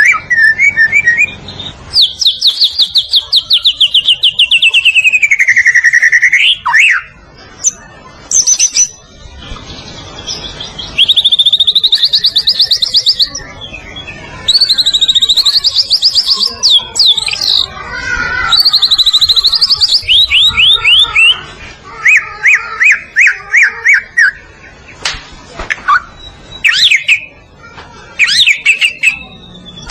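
White-rumped shama (murai batu) singing a loud, varied song. Long rapid trills, one sweeping down in pitch, alternate with short sharp notes and brief pauses.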